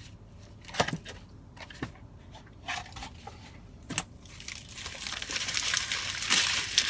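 A few scattered short clicks, then from about halfway a food wrapper being crinkled and handled, getting louder toward the end.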